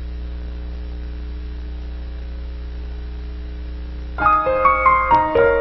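A steady low electrical hum, then piano music starting about four seconds in with a few ringing notes.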